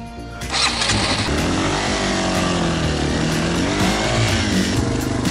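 Yamaha Serow's single-cylinder four-stroke engine running under way, coming in about half a second in with its pitch rising and falling as it revs through the ride.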